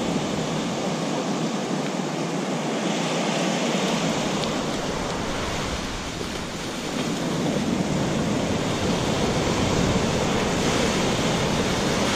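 Ocean surf breaking and washing up the beach: a steady rush of waves that eases a little about six seconds in and then builds again.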